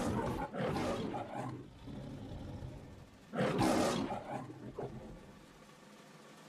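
The MGM logo lion roaring: a run of roars, the loudest about three and a half seconds in, dying away after about five seconds into a faint steady hum.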